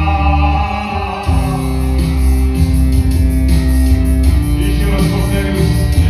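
Music with long held notes over a deep bass, changing about a second in and again past four seconds, with a man singing into a microphone over it.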